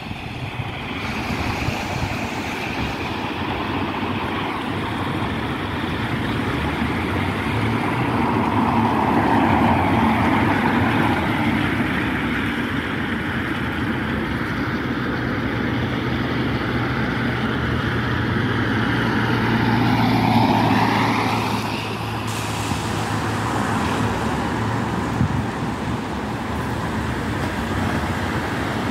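Road traffic passing on a wet road, tyres hissing, with the loudest vehicles going by about nine and twenty seconds in, the second falling in pitch as it passes.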